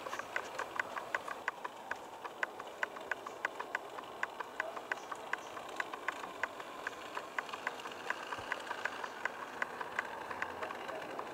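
Model train running on the layout's track: sharp, even clicks of wheels over rail joints about three times a second, over a steady running hiss.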